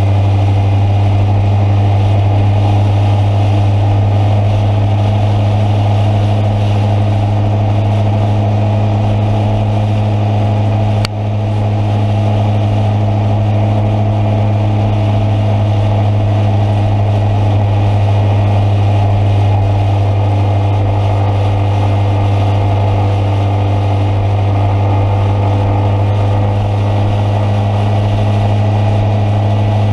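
Engine running steadily at one unchanging pitch, with a single brief click about eleven seconds in.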